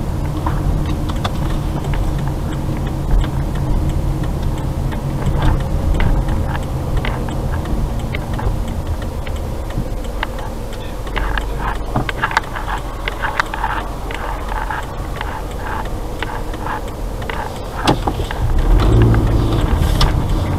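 Car engine and road noise heard from inside the cabin as the car slows to a stop. A turn signal ticks evenly while it waits to turn right. About two seconds from the end the engine gets louder as the car pulls away.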